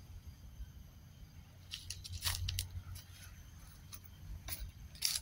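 A low steady rumble on the phone's microphone, with a handful of short, sharp crackles about two seconds in and again near the end.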